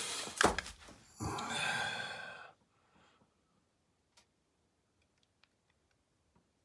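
A sharp knock, then a long breathy exhale from a person, followed by a few faint clicks.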